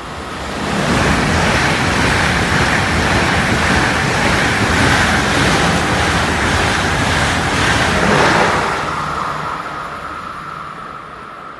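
ICE high-speed train running through the station at speed without stopping: a loud, steady rush of wheels on rail and air that builds within about a second, holds while the train passes, and fades after about eight seconds.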